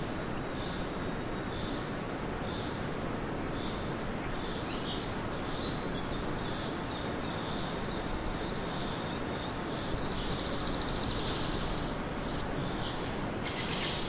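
Outdoor nature ambience: a steady background hiss with small birds chirping repeatedly, joined by a buzzier, denser trill from about ten seconds in.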